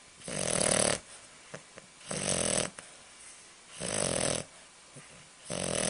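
English bulldog puppy snoring in her sleep: four loud, regular snores, one roughly every two seconds.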